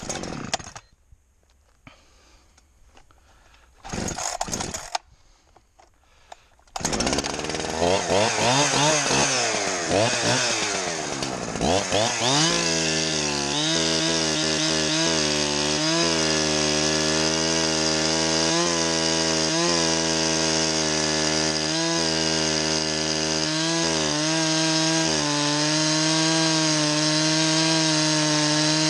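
Two-stroke chainsaw starting up about seven seconds in, its engine revved up and down for a few seconds, then running at a steady high pitch with brief dips.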